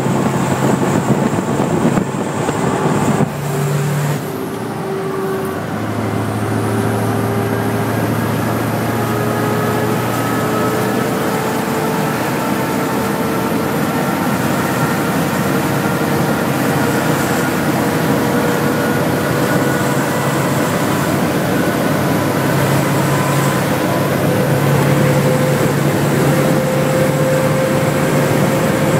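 Cab interior of a Renault Magnum 500 truck at high highway speed: the Mack diesel engine drones under heavy wind and road noise. The sound is louder and rougher for the first four seconds or so, then settles into a steady drone whose pitch climbs slowly as the truck keeps gaining speed toward its top speed of about 135 km/h.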